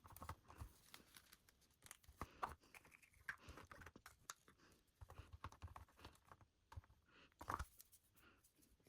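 Faint crinkling and tearing of doll packaging being unwrapped by hand, with scattered small clicks and taps. Two louder rustles come about two and a half seconds in and near the end.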